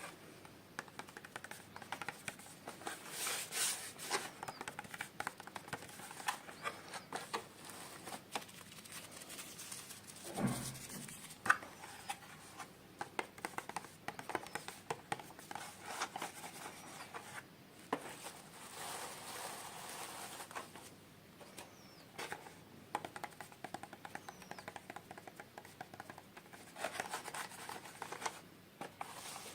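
Hands unboxing small toys: plastic packaging and pieces scratched, tapped and handled, with many small clicks and one sharp click about eleven seconds in.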